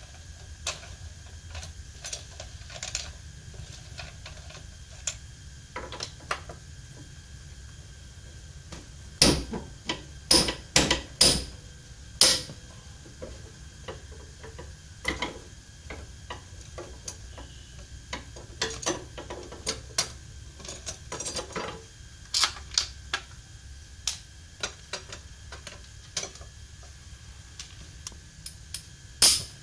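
Metal clicks and clinks of a hand wrench working on a scooter's CVT cover bolts. There is a run of sharp metallic knocks about ten seconds in, another just after twenty seconds, and one near the end.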